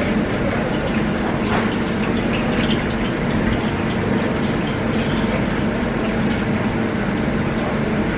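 Steady kitchen ventilation noise: an extraction fan running with a low hum, with faint scattered clicks over it.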